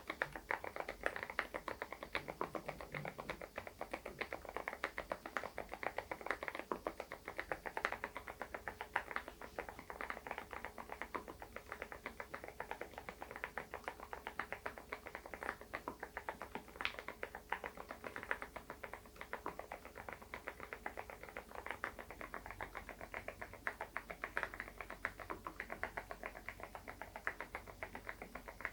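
Typing on an SPM PL108W full-size keyboard fitted with lubed low-noise Moksae switches: a rapid, continuous run of keystrokes with no pauses.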